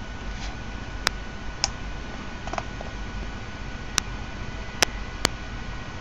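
Half a dozen sharp, unevenly spaced clicks from the buttons of a plastic fischertechnik Bluetooth joystick controller being pressed, over a steady low hiss.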